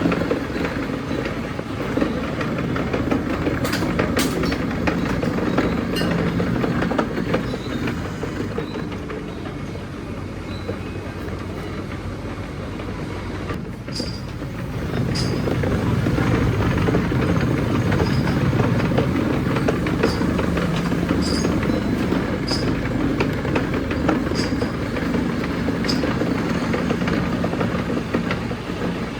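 Milling machine running steadily while gear cutting goes on. The noise eases off a little about eight seconds in and rises again about fifteen seconds in, with faint clicks through it.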